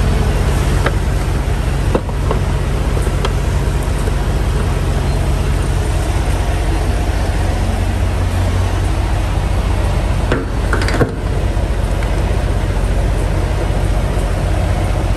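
Steady low hum and rumble of idling diesel truck engines at a fuel island, with a few light clicks and a brief clatter about ten to eleven seconds in as the pump and fuel nozzle are handled.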